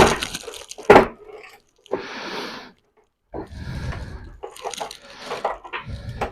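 Objects being handled on a workbench: two sharp knocks in the first second, then a short scraping burst and a stretch of irregular rustling and clattering.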